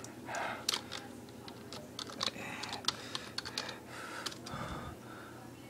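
Typing on a laptop keyboard: irregular, quick key clicks, bunched most thickly in the middle of the stretch.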